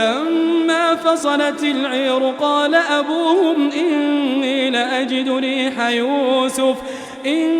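Male Quran reciter chanting in the melodic tajweed style, drawing out long ornamented notes whose pitch wavers and bends, with a brief breath near the end before the voice resumes.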